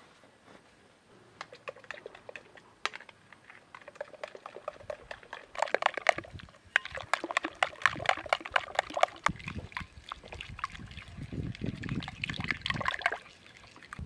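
Metal spoon stirring a frothy liquid in a glass bowl: rapid clinks of spoon on glass with liquid sloshing. It starts with scattered clinks and becomes dense and fast from about five seconds in, easing off near the end.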